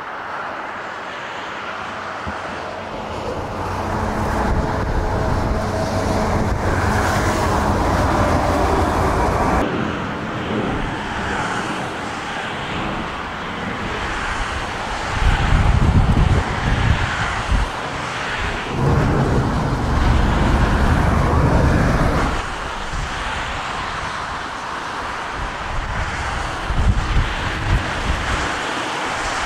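Jet airliner engines running on approach, with a steady whine in the first ten seconds. The sound changes abruptly about ten seconds in. Storm-force wind gusts rumble heavily on the microphone, strongest in two long bursts in the middle.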